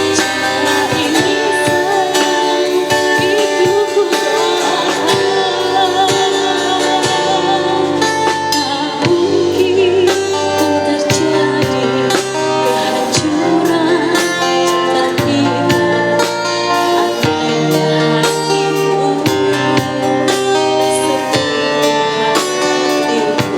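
A woman singing live with guitar accompaniment, her voice wavering with vibrato over steady strummed chords.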